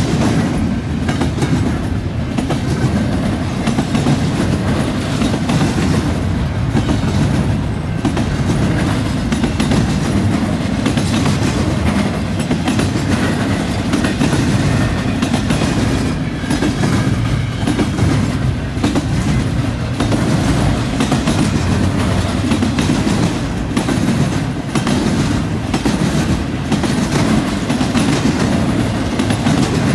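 Freight train rolling past at close range: a steady heavy rumble of the cars with wheels clicking over the rail joints and junction switch.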